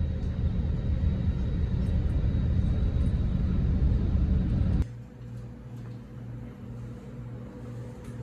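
Steady low road rumble of a car driving. About five seconds in it cuts off abruptly to a much quieter, steady low hum.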